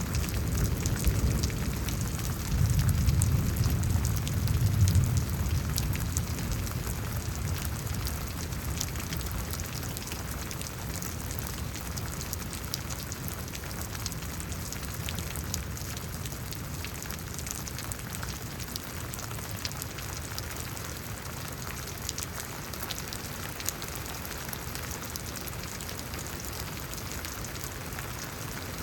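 Steady rain falling, with many fine drop ticks. A low rumble of distant thunder in the first few seconds fades away.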